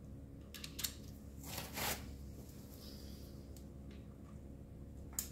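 Light clicks and a short rustle as gloved hands fit the oil filter cover onto the motorcycle engine's case, ending in a sharp click near the end.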